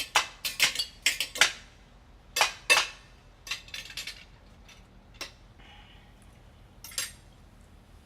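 Cutlery clinking against dishes: a quick run of sharp clinks in the first second and a half, two more a little later, then scattered lighter clinks.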